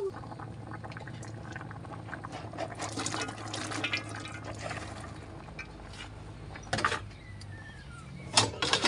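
Pork sinigang broth bubbling in a wok over a wood fire, swelling as a handful of cut green vegetables is tipped into the hot liquid. A few sharp knocks come near the end.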